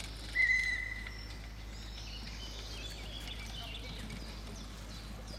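A single short, high, steady whistle about half a second in, lasting under a second, over outdoor background noise.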